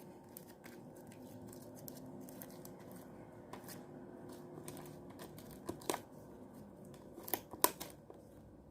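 Homemade slime being worked by hand: faint sticky crackling with scattered small clicks, and a few sharper clicking pops about two thirds of the way through.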